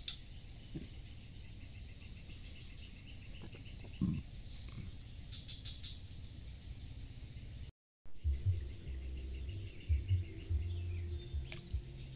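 Steady high-pitched drone of insects in the streamside vegetation, with a few short bird chirps. The sound drops out for a moment about eight seconds in, and low rumbling thumps follow.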